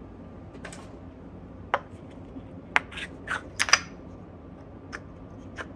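Light, scattered wooden clicks and knocks, about nine in all, as small hardwood bench-dog parts are handled and fitted together by hand.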